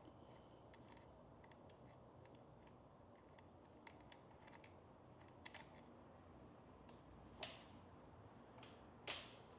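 Near silence with faint scattered clicks and taps of small hand tools and parts being handled while a motorcycle mirror is unbolted, and two louder brief scraping clicks near the end.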